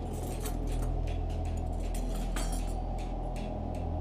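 Camp gear being handled, with irregular light clinks and jingles several times a second. A steady low drone runs underneath.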